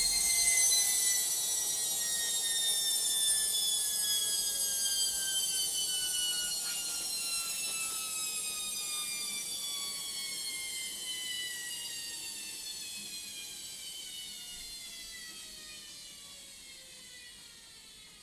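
Logik washing machine winding down at the end of its spin: a high whine that falls steadily in pitch and fades as the drum coasts to a stop.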